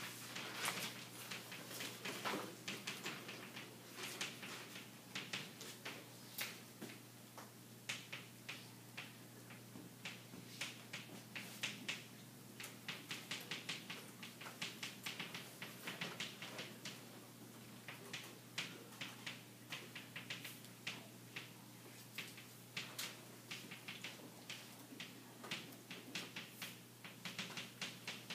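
Chalk on a chalkboard: faint runs of quick taps and short scratchy strokes as words are written, with brief pauses between lines. A steady low hum runs beneath.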